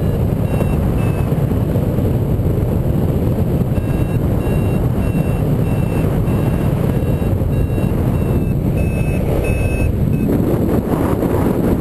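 Wind buffeting the microphone of a paraglider in flight, with a variometer's short high beeps over it, about two a second, mostly from about four seconds in. The beeping signals that the glider is climbing.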